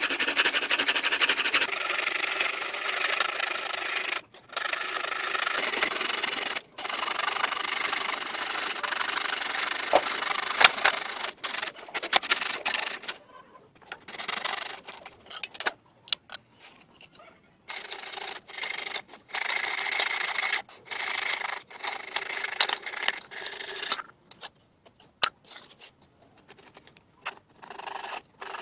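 Bow saw cutting through a wooden board by hand, a steady rasp of back-and-forth strokes with brief pauses. From about halfway on the sawing comes in shorter spells with gaps between them.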